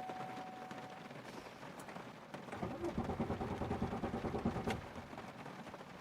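2002 Chevy Malibu's starter cranking the engine for about two seconds in a fast, even pulsing, without it firing: the no-start, with the anti-theft system active. A steady warning tone dies out about a second in.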